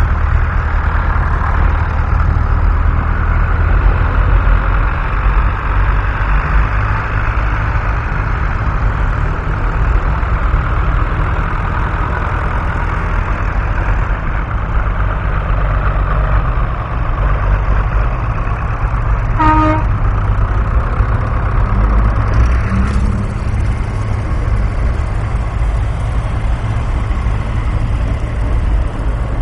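Tractor diesel engines running in a steady low rumble, with a short horn toot about two-thirds of the way through.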